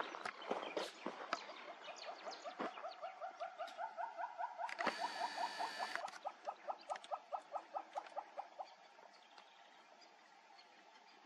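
An animal call repeated as a fast, even series of short notes, about four a second, for several seconds before it fades out. There is a brief hiss about halfway through, and a few clicks near the start.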